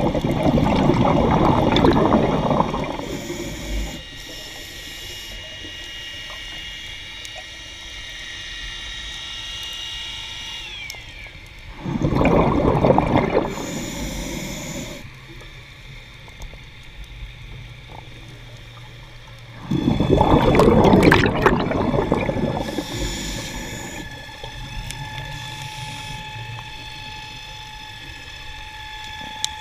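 Scuba regulator exhaust bubbles heard underwater: a loud gurgling rush of bubbles each time the diver breathes out, three times plus the start of a fourth near the end, with quieter stretches between breaths where faint high whines can be heard, one gliding down partway through.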